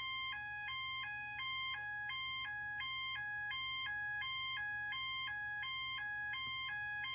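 System Sensor MASS fire-alarm horn sounding its high-low tone: two pitches, about 800 and 1000 Hz, alternating steadily about three times a second.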